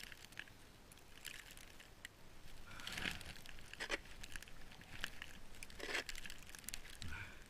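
Deep snow crunching in a series of separate crunches, about one a second, loudest about three and six seconds in.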